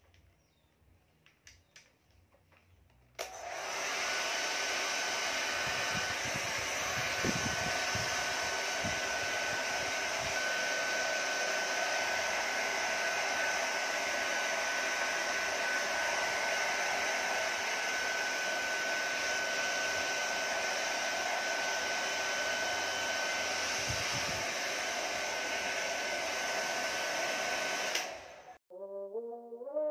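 Handheld hair dryer switched on about three seconds in, running steadily on a strong rush of air with a thin steady whistle, then switched off near the end.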